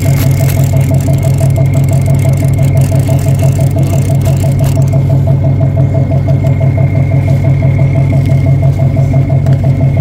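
A fishing boat's engine running steadily with an even, low throb and a thin steady whine above it.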